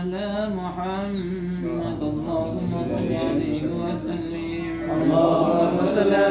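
Group of men chanting Islamic dhikr in a slow, melodic unison recitation. The chant swells louder about five seconds in.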